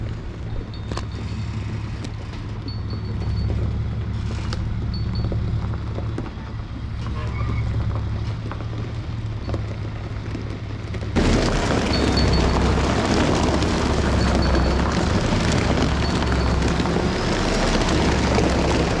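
A heavy engine running steadily with a low rumble. About eleven seconds in it jumps abruptly to a louder, rougher rumble, and short high chirps sound now and then above it.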